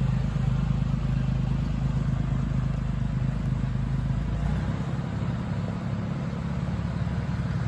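Farm tractor and ATV engines running steadily at low speed as both vehicles pull away. The deepest part of the rumble eases a little past halfway through.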